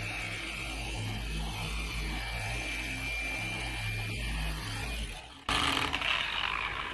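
Electric machine polisher running on a car's painted hood, a steady mechanical hum with its sound turned down. About five and a half seconds in it changes abruptly to a louder, even hiss.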